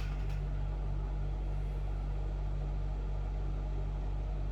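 A steady low hum with a faint pulsing throb in it, and a single click right at the start.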